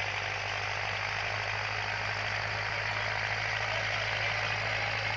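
Diesel tractor engine running steadily at a low, even speed, with a constant low hum.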